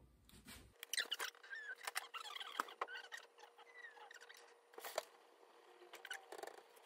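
Fast-forwarded kitchen audio of a lidded pan heating on a gas hob: faint, scattered high squeaky chirps and a few sharp clicks over a faint steady hum.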